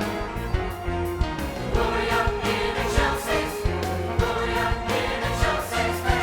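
Choir singing with a band accompaniment, a drum keeping a steady beat under sustained bass notes.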